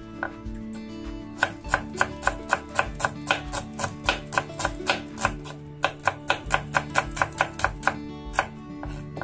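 Kitchen knife slicing shallots on a wooden cutting board: a steady run of sharp chops, about three or four a second, starting about a second and a half in and pausing near the end. Soft guitar music plays underneath.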